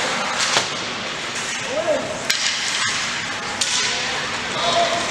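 Ice hockey game sounds: a steady arena din of voices, with a few sharp clacks of sticks and puck striking.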